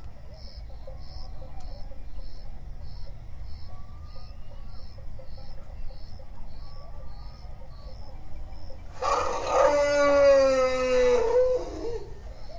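An elephant trumpets once, loudly, for about two seconds near the end, its pitch sliding down as it fades. Before it there is only a faint background with a soft high chirp repeating about twice a second.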